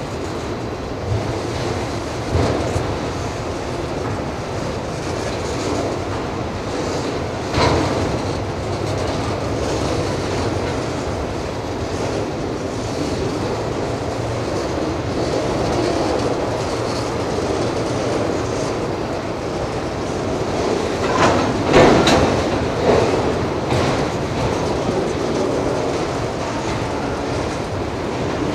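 Autorack freight cars rolling past on steel wheels, a steady rumble and rattle of wheels on rail. Sharp knocks stand out about 8 seconds in, and a cluster of them comes around two-thirds of the way through.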